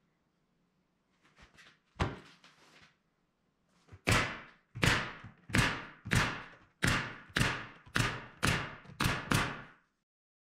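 Pneumatic nail gun driving nails through a pine strip into a particle-board panel: a single shot, then a run of about ten sharp shots in quick succession, roughly one every half second or so.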